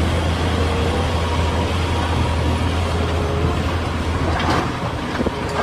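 Large Caterpillar hydraulic excavator's diesel engine running steadily under load with a deep low hum, as it digs and swings; a brief clatter about four and a half seconds in.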